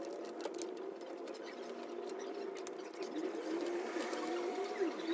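Light metallic clicks and ticks of a 4 mm Allen key working the bolts out of a unicycle saddle's handle and stiffener plate. A wavering low tone sits underneath from about three seconds in.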